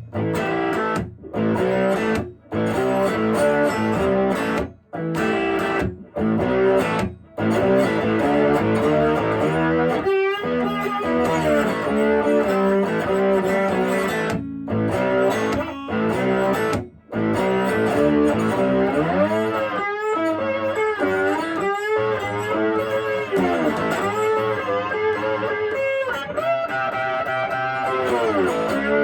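Electric slide guitar, a Höfner Verythin Singlecut tuned to open G and played through an amp, playing a blues. Notes slide up and down in pitch, broken by several short stops between phrases.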